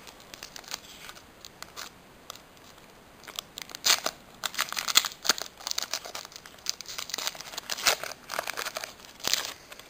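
Foil wrapper of a Pokémon booster pack crinkling in the hands and being torn open. It is quieter at first, then a dense run of sharp crackles starts about three and a half seconds in.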